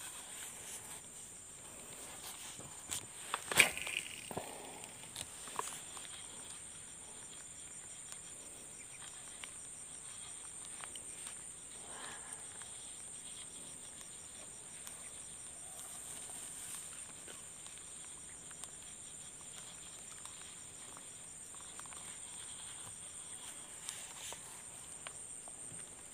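A steady, high-pitched insect chorus, with a fast even ticking from another insect through the middle. There are faint rustling steps through grass and a sharp click about three and a half seconds in.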